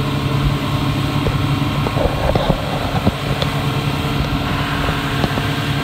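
A Yamaha 115 hp outboard motor runs steadily at speed, pushing a small boat along, with the rush of water from its wake and spray.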